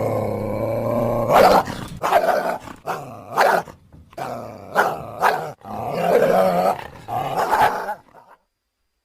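Coyotes calling: a low pitched call at first, then a run of short sharp yips and barks mixed with wavering howl-like calls, stopping abruptly about eight seconds in.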